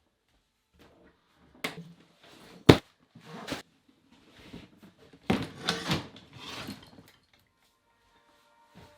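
Handling noises in a small room: a few knocks and scuffing clunks, with one sharp click about three seconds in as the loudest sound.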